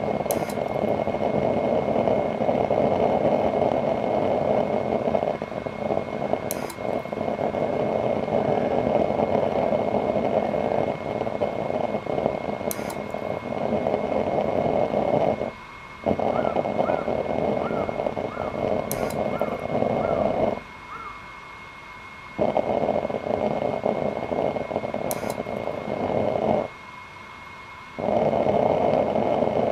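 Fan-fed waste-oil burner running with a steady roar of flame, under a thin, steady high whine. The roar drops away abruptly three times in the middle and later part, for up to about two seconds, then returns. A faint tick comes about every six seconds.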